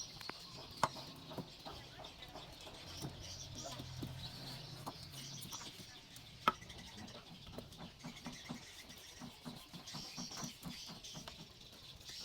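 Faint bird calls and chirps, with two sharp clicks, about a second in and near the middle.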